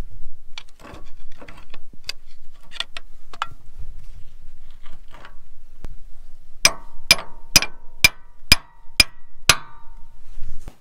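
Hammer striking a steel punch held against a grain drill's frame, working on a sheared bolt: seven sharp metallic blows about half a second apart, each with a brief ring. Before the blows come scattered clinks and knocks of tools being handled.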